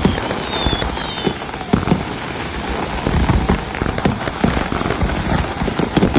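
Fireworks display: a dense barrage of shells popping and crackling, with a few whistles falling in pitch in the first second or so.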